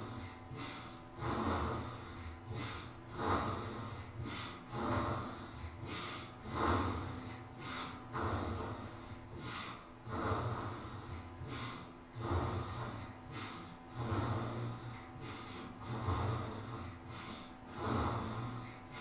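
Newborn baby snoring in sleep: a snuffly, noisy breath repeating regularly, about one every second and a half to two seconds.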